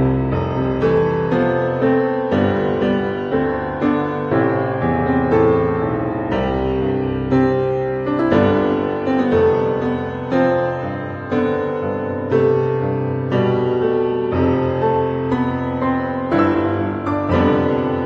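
Background piano music, a steady stream of struck notes each ringing and dying away.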